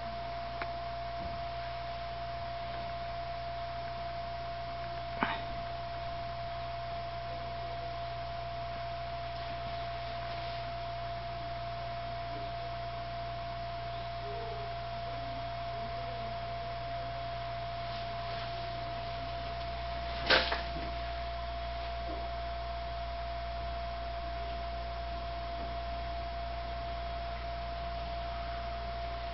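Steady electrical whine held at one pitch over a low hum, broken twice by a brief knock, once about five seconds in and again, louder, about two-thirds of the way through.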